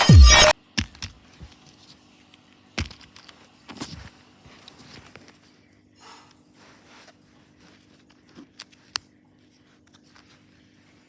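Kinder Joy egg's wrapper being handled, torn and crinkled: scattered faint rustles and clicks with a few sharper ticks, over a faint steady hum. Electronic music cuts off about half a second in.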